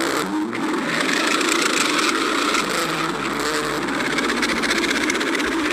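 Stomach growling: a steady, rumbling gurgle that keeps going without a break.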